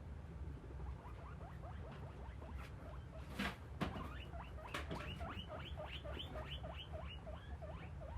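A small rodent squeaking in a rapid series of short chirps, about three to four a second, thickening after the first second, with a brief rustle and a couple of clicks around the middle.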